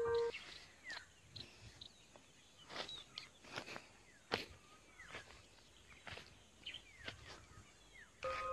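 Faint outdoor ambience with scattered short bird chirps and a few soft clicks. Background music with sustained keyboard tones comes back in near the end.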